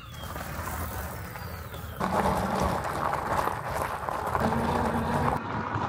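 Fat tyres of a Velowave Prado 2 electric bike rolling over gravel, a steady crunching, rushing noise. The sound changes abruptly about two seconds in and again near the end.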